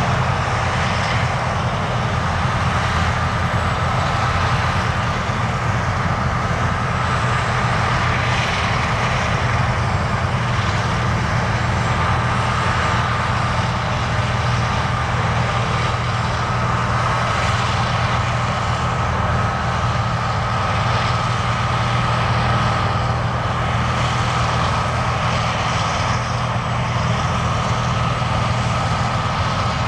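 John Deere harvest machinery running steadily: a continuous engine drone with a steady high tone above it.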